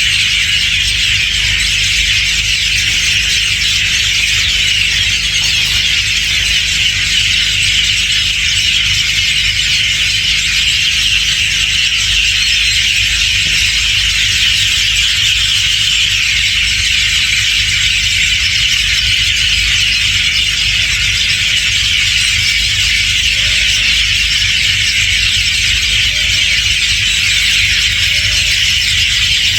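Hundreds of birds calling at once, a dense, continuous high-pitched chatter with no break, over a steady low rumble.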